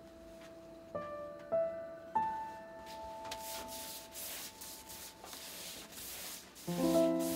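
A wide brush swept in quick repeated strokes over wet washi paper, spreading a coat of colour, with a run of swishes from about three seconds in. Soft piano music plays under it.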